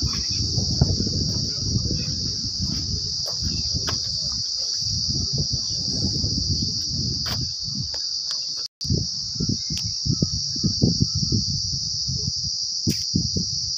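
Insects buzzing steadily at a high pitch, over a low, uneven rumble, with a brief cut in the sound about two-thirds of the way through.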